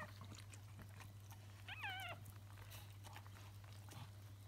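Newborn puppy giving one short, wavering, high-pitched squeal about two seconds in, among soft wet clicking and licking sounds as the mother dog cleans it of its birth sac.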